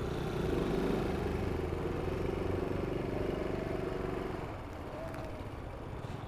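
Honda Super Cub's small single-cylinder four-stroke engine running steadily as the bike rides up close, becoming somewhat quieter about four seconds in.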